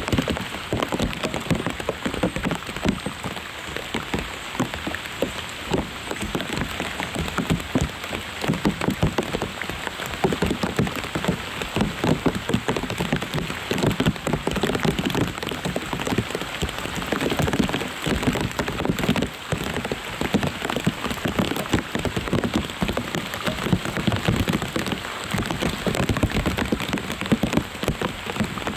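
Steady rain falling on lotus leaves, a dense, continuous patter of many separate drop hits with no let-up.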